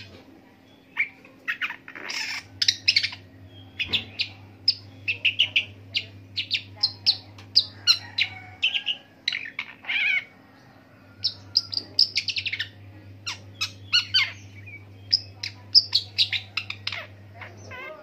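Long-tailed shrike (pentet) singing a long, continuous run of quick, varied chirps and whistles, mimicking the calls of other birds, with short breaks about four seconds and ten seconds in.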